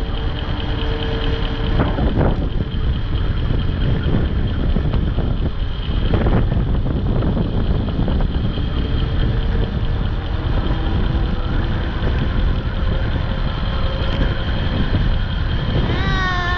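Wind buffeting the microphone of a camera on a moving e-bike: a steady, loud low rush with a faint steady whine behind it. Near the end, a short high squeal falls in pitch.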